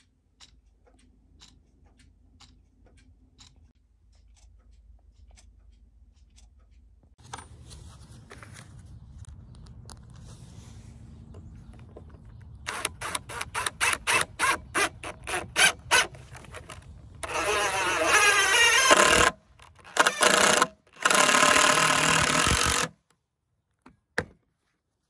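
A wall clock ticking faintly, about two ticks a second. Then a cordless DeWalt impact driver drives screws into a wooden board, first in quick short trigger bursts and then in two longer loud runs of hammering.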